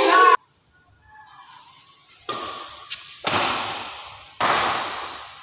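Badminton rackets striking a shuttlecock in a rally: three sharp smacks about a second apart, each with a long hall echo, and a light click between the first two.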